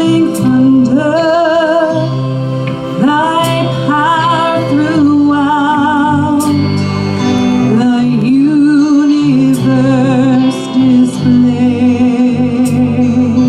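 Live church praise band playing a gospel song, with long sung notes held with vibrato over a steady band backing. Scattered sharp drum or cymbal hits run through it.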